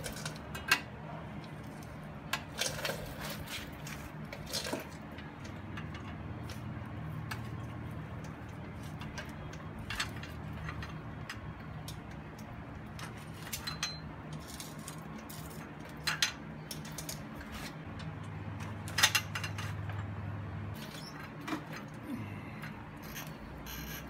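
Scattered light clicks and knocks of a new clutch cable being pulled and fed along its routing on a Harley-Davidson touring motorcycle, the cable housing tapping and rubbing against the frame and exhaust. A low hum swells twice underneath.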